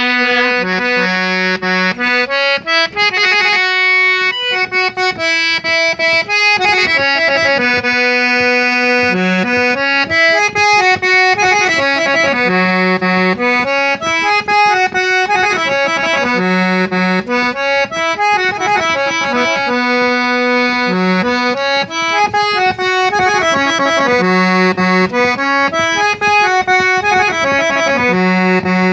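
Harmonium playing the melody of a folk song in an instrumental interlude between sung verses, a phrase that returns about every four seconds, with percussion strokes throughout.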